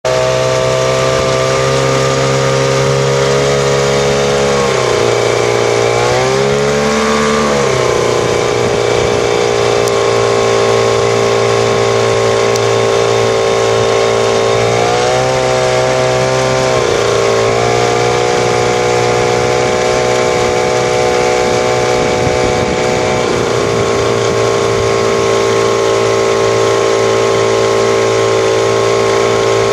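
Motorboat's outboard motor running steadily alongside at a constant pace, its pitch dipping and coming back up three times as the throttle is eased and reopened.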